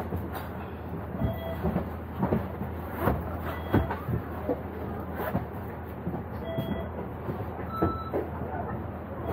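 A stationary bus's engine idles with a steady low hum heard from inside the cabin. Irregular clicks and knocks come through it, along with a few short electronic beeps.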